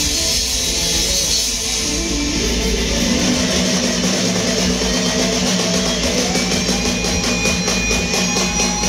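Live band playing: electric guitar, bass guitar and drum kit together, steady and continuous.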